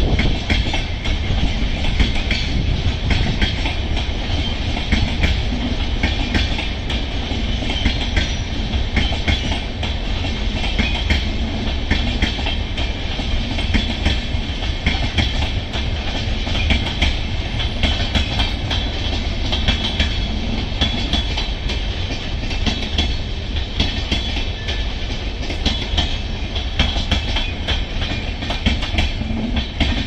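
Passenger train of LHB coaches running past: a steady rumble of wheels on rail with a continuous run of clicks as the wheels cross rail joints.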